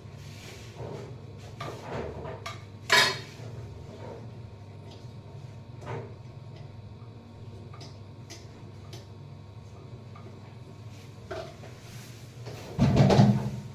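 Metal tools and parts clinking and clattering as they are handled, over a steady low hum. There is a sharp clatter about three seconds in and a heavier knock near the end.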